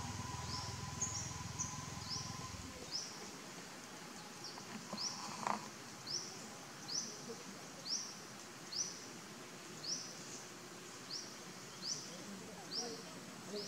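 A small animal calling with a high, short rising chirp, repeated over and over at a little more than once a second. A low rumble underneath cuts off suddenly about three seconds in.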